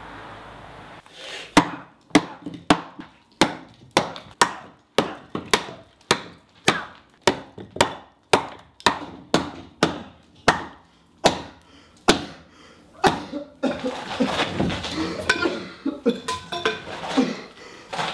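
Sharp wooden knocks, evenly spaced at about two a second, then from about fourteen seconds in a jumbled clatter of wooden pieces being shifted and knocked together.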